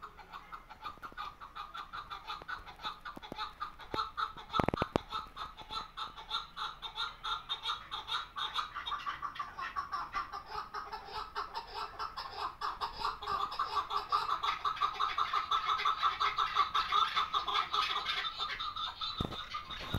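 Chukar partridge (keklik) calling: a long, fast run of repeated clucking notes that grows louder in the second half. A single knock sounds about five seconds in.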